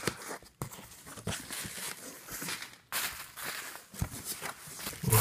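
Plastic bubble wrap and cardboard packaging rustling and crinkling as hands handle them, with scattered sharp clicks and a brief break about three seconds in.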